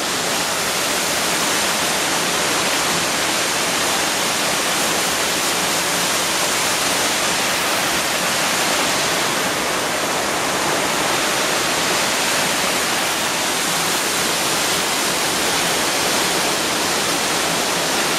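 Waterfall pouring down a rock face into a rocky pool: a steady, even rushing of falling water.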